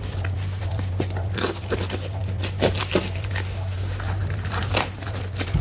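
Packaging crinkling and tearing as a parcel is unwrapped by hand, in irregular crackles, over a steady low hum.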